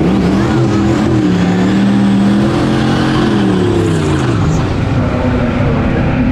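Drag-racing car at full throttle down the strip: its engine note climbs for about two seconds, then drops away as it passes.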